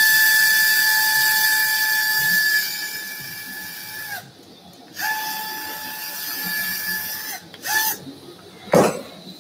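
Surgical power driver driving a headless compression screw into bone: a steady, high motor whine that grows quieter after about two and a half seconds and stops about four seconds in, pitch dipping as it spins down. It runs again a second later for about two seconds, gives a brief burst just before eight seconds, and a sharp click follows near the end.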